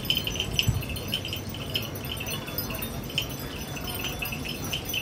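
Metal wind chimes tinkling in quick, irregular strikes, over a low background hum.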